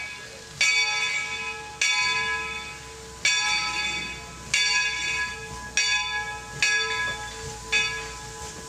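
Steam locomotive bell on 4-4-0 No. 17 ringing steadily as the engine moves forward: seven clanging strokes about a second or so apart, each fading before the next.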